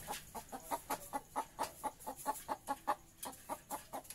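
Kampung chickens clucking: a steady run of short clucks, about three a second.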